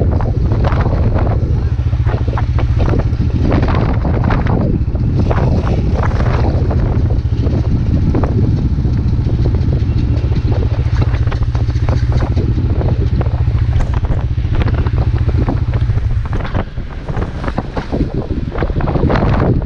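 Strong wind buffeting the microphone: a loud, continuous rumbling roar with gusts, easing slightly near the end.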